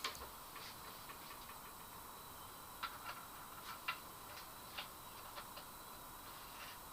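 Faint, irregular light clicks and taps of small carburettor parts being handled as a new diaphragm assembly is fitted and lined up in the carburettor body.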